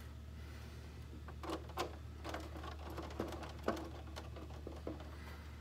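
Small screwdriver driving screws into a plastic RC car body, with a string of irregular light clicks and taps of metal on plastic over a steady low hum.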